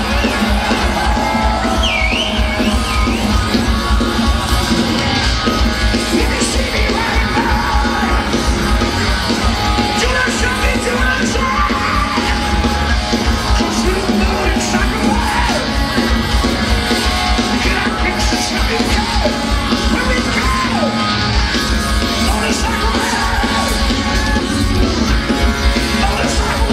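Heavy metal band playing live through a big outdoor PA, heard from within the audience: distorted electric guitars, drums and bass, with the singer's vocal over them.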